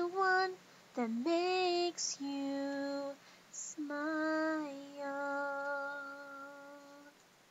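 A young female voice singing unaccompanied, a few slow phrases ending on a long held note that fades out about seven seconds in.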